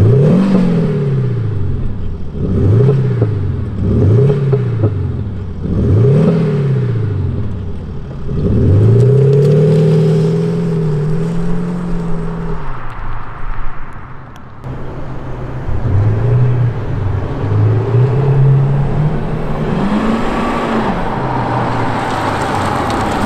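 Mercedes-Benz S350d diesel with an active sound unit playing a synthetic AMG-style V8 exhaust sound, set to its brighter sound file. It is blipped four times in quick succession, each rev rising and falling, then pulls away with a longer climb in pitch held for a few seconds, and revs up again more quietly near the end.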